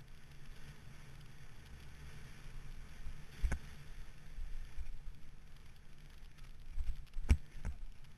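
Rockrider 6.3 mountain bike rolling fast down a dirt forest trail, heard from a helmet-mounted camera: a steady low rumble of tyres and wind. Sharp knocks come about three and a half seconds in and twice near the end, the loudest just over seven seconds in, as the bike jolts over bumps.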